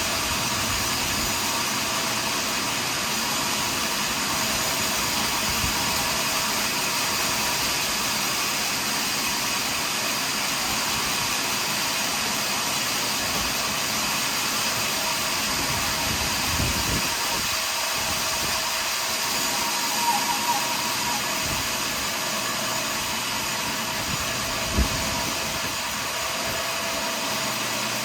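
Portable sawmill running steadily while cutting a large pine log, with a few short knocks in the second half.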